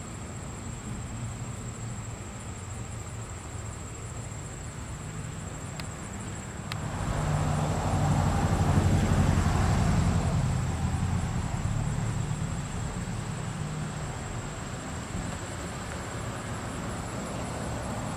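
A vehicle passing: a low rumble that swells about seven seconds in, is loudest for a few seconds, then fades away, over a steady thin high-pitched whine.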